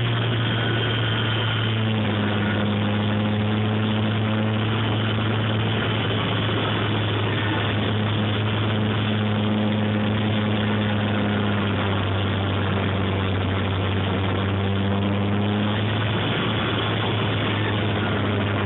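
Onboard sound of a Dynam Corsair RC model plane's brushless electric motor and propeller running steadily, heard close up over a constant rush of air. Its low hum shifts slightly in pitch a few times as the throttle changes.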